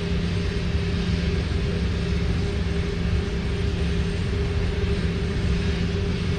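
Steady machine drone with a constant low hum, like a motor or engine running, unchanging throughout.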